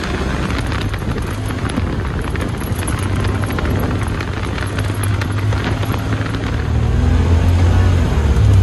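Side-by-side UTV driving on a dirt trail: the engine runs steadily under the crunch and rattle of tyres and chassis on the rough ground. The low engine drone gets louder about seven seconds in.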